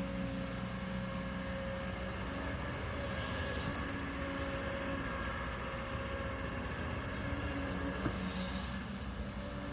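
Kobelco hydraulic excavator's diesel engine running steadily while working, with a small knock about eight seconds in.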